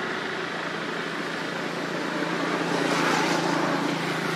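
Steady engine hum with traffic-like noise behind it, swelling briefly about three seconds in.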